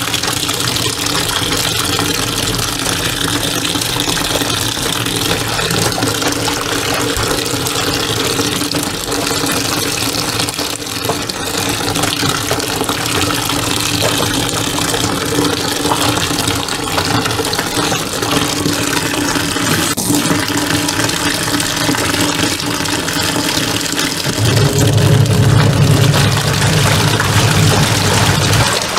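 Water running into the tub of a top-loading washing machine while curtains are pushed down into the soapy water. About 24 seconds in, the machine's motor starts with a louder low hum and churns the water in the tub.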